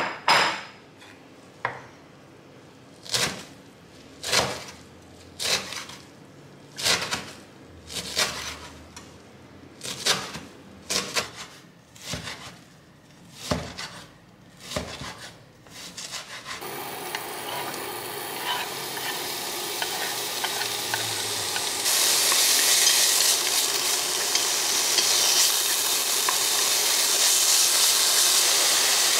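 Kitchen knife chopping meat on a wooden cutting board, a dozen or so sharp strokes about one a second. About halfway through it gives way to diced meat sizzling in oil in a frying pan as it is stirred, the sizzle growing louder about two-thirds of the way in.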